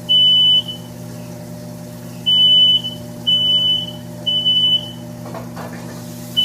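Smoke alarm sounding its three-beep pattern: loud, high-pitched beeps about a second apart in groups of three, with a pause between groups, set off by the stove cooking.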